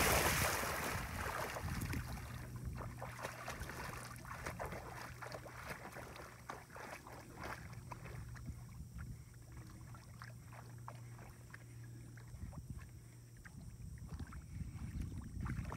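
Airedale puppy's splash into a pond dying away over the first couple of seconds, followed by faint, irregular sloshing and lapping of water as the dog swims away. A faint steady low hum lies underneath.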